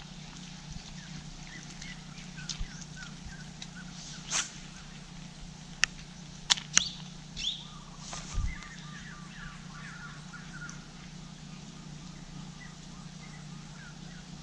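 Birds calling in runs of short, quickly repeated notes across a marsh, over a steady low hum. A few sharp clicks sound about halfway through.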